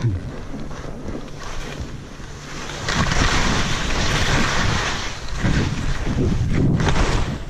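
Skis sliding and turning through snow on a fast descent, a hissing rush mixed with wind buffeting the microphone; it grows louder about three seconds in.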